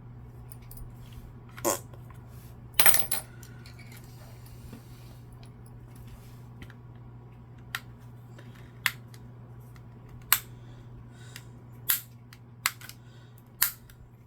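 Light, sharp metallic clicks and clinks of small hand tools working at the security screws of a disassembled Xbox One controller, which are not budging. The clicks come one at a time at uneven gaps, about eight in all, with a quick cluster about three seconds in, over a steady low hum.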